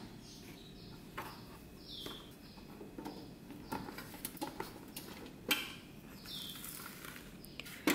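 Faint knocks and rubbing of a Butterfly portable gas stove being lifted out of its hard plastic carrying case, with a sharper knock about five and a half seconds in. Two faint falling chirps sound in the background, one about two seconds in and one past six seconds.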